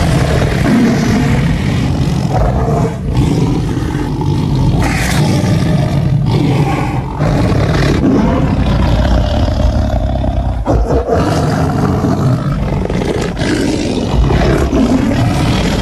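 Tiger sound effects: loud, continuous growling and roaring with only brief breaks.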